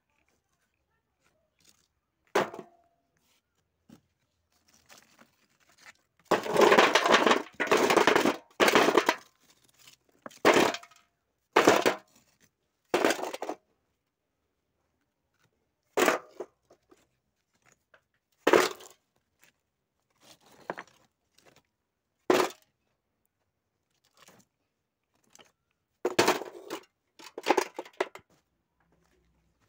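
Broken stones being dropped one at a time into a metal basin, each landing with a sharp clatter. A quick run of clatters comes a few seconds in, then single ones every second or two, and another quick run near the end.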